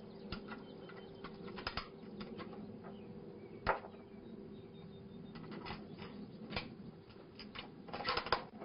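Small clicks and taps from handling the rifle and its cartridges while it is made ready to fire, the sharpest about four seconds in and a flurry near the end, over a faint steady hum. No shot is fired.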